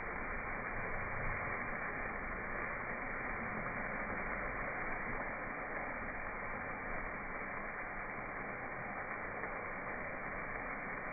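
Steady sizzling hiss of short ribs and chicken wings cooking over the open flames of a gas grill.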